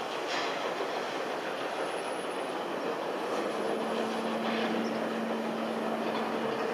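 GWR 2-8-0T tank steam locomotive hauling a train of coaches: a steady running rumble of engine and wheels. A faint steady whine joins about four seconds in.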